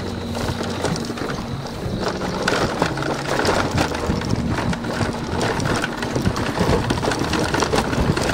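Small motorcycle running along a rough gravel road, the bike rattling and clattering over the loose stones. The rattling gets denser and a little louder a couple of seconds in.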